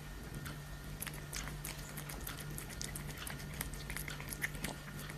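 A cat eating from its bowl: quick, irregular chewing and mouth clicks.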